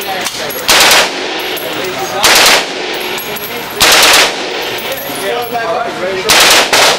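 M4 carbine firing short bursts of automatic fire in an indoor range, about one burst every one and a half seconds, with the last two bursts almost back to back near the end.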